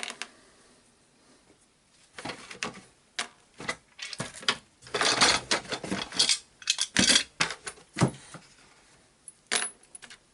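Small metal screws clinking and rattling as they are picked through by hand, in an irregular string of short clicks and jingles, busiest in the middle, with one last click near the end.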